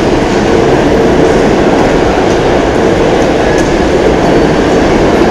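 Loud, steady rumbling din of a busy city junction at night, with no single event standing out and a faint steady hum underneath.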